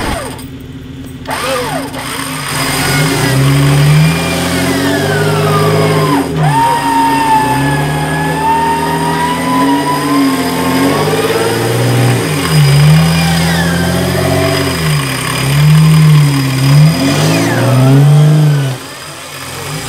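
Warn 8274 winch hauling in its line under heavy load as it pulls a Jeep Wrangler up a muddy slope, its motor and gear whine rising and falling in pitch as the load changes.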